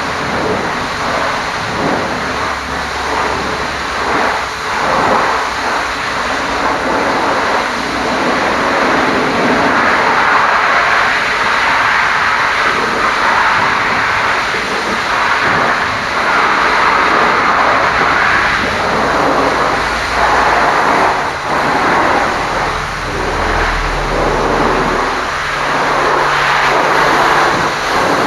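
High-pressure washer jet spraying water against a truck's bodywork, a continuous hiss that swells and fades as the jet moves over the surfaces. A low hum comes and goes underneath.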